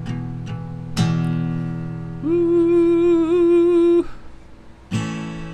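Acoustic guitar strummed, with one hard strum about a second in left to ring. After it a voice holds a long sung "woo" with a slight wobble, and another strum comes near the end.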